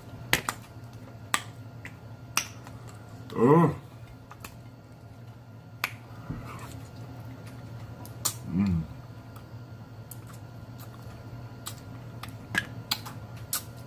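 Close-miked eating sounds: irregular wet mouth smacks and lip clicks while chewing pig's feet and sucking hot sauce off the fingers. Two brief hums break in, about three and a half and eight and a half seconds in.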